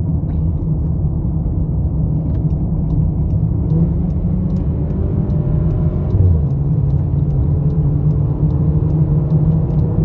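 Volkswagen Jetta 1.4 TSI driving at a steady pace, heard inside the cabin as a continuous low rumble of road and engine noise, with the engine's hum rising slightly about halfway through.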